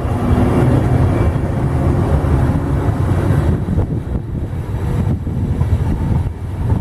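A train running past: a loud, steady low rumble that dips briefly near the end.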